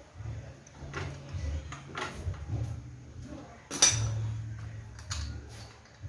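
Several sharp metallic clinks and knocks, like tools and metal parts being handled, the loudest nearly four seconds in, over a low steady hum.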